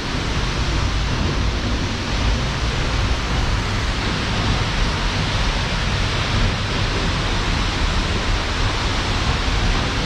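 Seljalandsfoss waterfall plunging into its plunge pool, heard close up from behind the falls: a steady, even rush of falling water.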